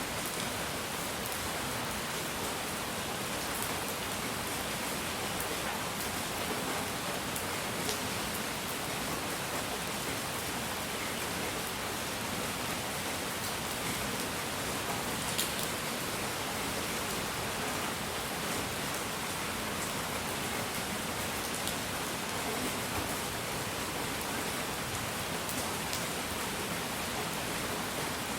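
Steady relaxation noise: an even, unbroken hiss spread across the range, with a few faint ticks scattered through it.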